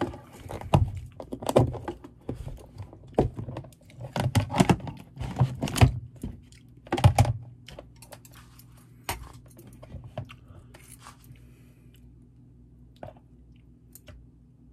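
Clicks, knocks and rattles of a kimchi storage container and its lid being handled, many in quick succession through the first half. After that come only a few faint clicks of metal chopsticks.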